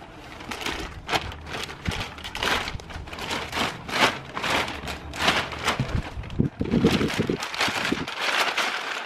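Large clear plastic bag crinkling and rustling in quick, irregular bursts as it is pulled and gathered off a bicycle frame.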